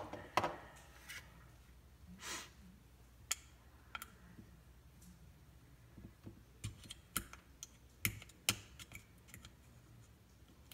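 Scattered light clicks and taps as the Gen 4 Glock 17's polymer frame is handled and probed to work its small slide lock spring loose, the clicks coming thicker in the second half.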